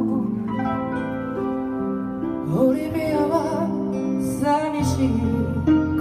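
Live performance of a song: a woman singing into a microphone, with held, wavering notes, accompanied by acoustic guitar and keyboard.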